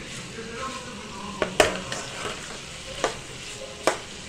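Boiled mutton pieces sizzling in oil in a frying pan as they are stirred with a perforated metal spatula, which knocks against the pan about four times, loudest about a second and a half in. The meat is being sautéed in the onion-tomato masala.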